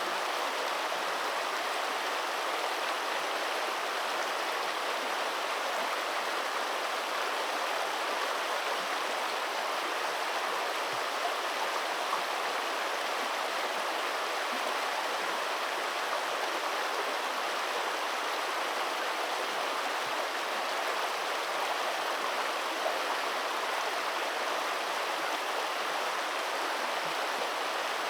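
Steady rushing of flowing river water, an even unbroken wash.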